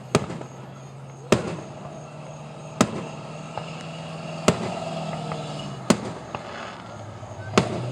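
Fireworks going off: six sharp bangs, about one every second and a half, over a steady low hum.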